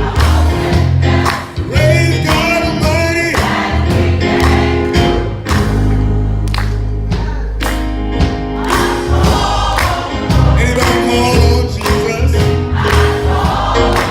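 A gospel choir singing, with deep held bass notes and percussion underneath.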